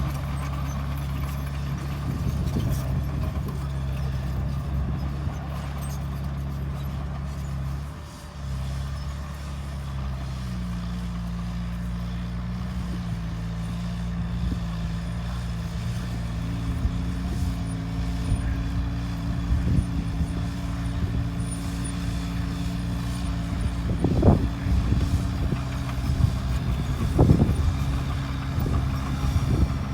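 Bulldozer's diesel engine running under steady load, dipping briefly about eight seconds in, then its pitch stepping up twice as it works. Two sharp metallic clanks come near the end.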